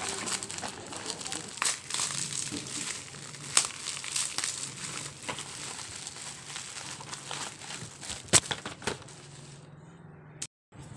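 Plastic bubble wrap crinkling and rustling as it is cut with scissors and pulled off a parcel of boxes, with many sharp little clicks; the loudest snap comes about eight seconds in, and it goes quieter near the end.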